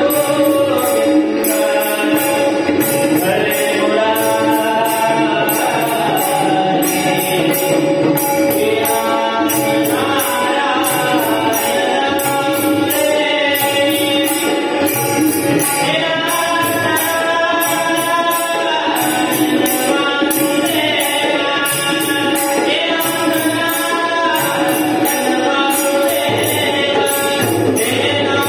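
A devotional bhajan: a singing voice carries a bending melody over a steady held drone, with a regular percussion beat.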